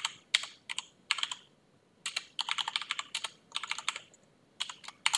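Computer keyboard typing in quick runs of keystrokes, with two short pauses between the runs.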